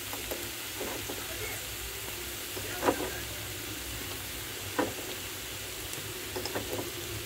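Sliced onions sizzling steadily as they fry in oil in a metal pot, with a couple of sharp knocks about three and five seconds in.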